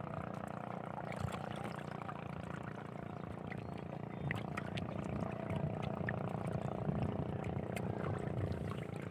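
Sea ambience on a small boat: steady wind and water noise with a low, even hum and a few faint clicks.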